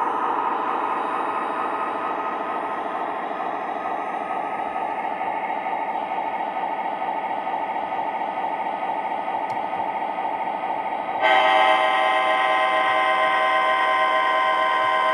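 Model diesel locomotive's onboard Proto-Sound 3.0 speaker playing a steady diesel engine running sound. About eleven seconds in, a loud multi-note air horn blast comes in and is held for about four seconds.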